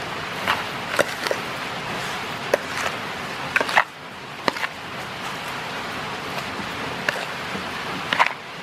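A spoon mixing raw pork chunks with seasoning in a plastic bowl: irregular light clicks and taps as it knocks against the bowl and the meat, over a steady background hiss.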